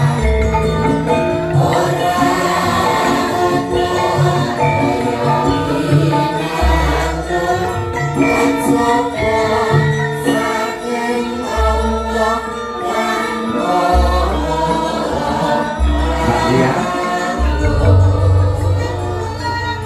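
Javanese gamelan music accompanying a shadow-puppet show, with voices singing over held metallophone tones and a low bass that comes and goes.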